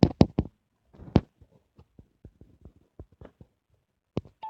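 A series of sharp clicks and knocks, a quick cluster of loud ones at the start and another about a second in, then scattered faint ticks, with a brief high squeak near the end.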